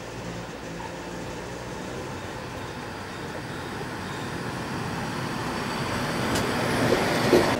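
Electric locomotive hauling a passenger train, approaching and running past along the platform. The rumble grows steadily louder, with a few sharp clacks near the end as the locomotive passes closest.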